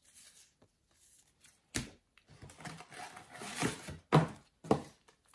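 Paper stickers handled and stacked on a wooden table. There is a sharp tap, then a couple of seconds of sliding, rustling paper, then two solid knocks on the table near the end.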